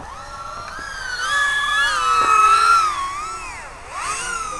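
FPV racing quadcopters' brushless motors whining, the pitch sliding up and down with throttle. More than one whine is heard at once, loudest a little past the middle.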